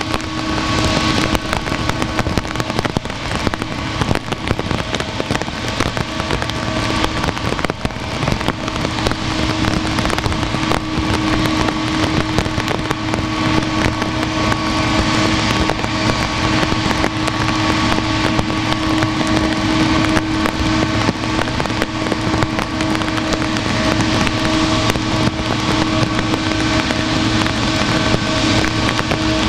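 Boeing 777-300 turbofan engines running at low taxi thrust: a steady jet whine made of several held tones over a rushing hiss, with fine crackling throughout.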